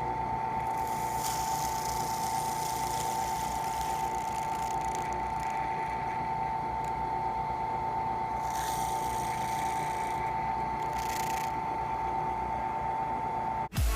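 Electric drill fitted with a heated bit, its motor running with a steady high whine while a hiss rises and falls several times. The motor cuts off just before the end.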